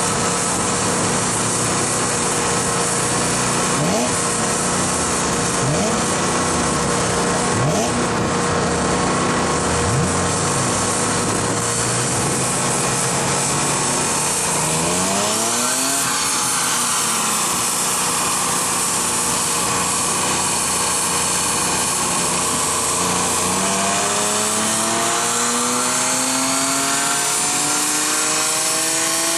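A Dinan-tuned BMW E46 M3's 3.2-litre straight-six runs on a chassis dyno over a steady loud rushing noise. There are a few short revs in the first third and a quicker climb about halfway. From about two-thirds through, a long pull rises steadily in pitch as the rollers spin up.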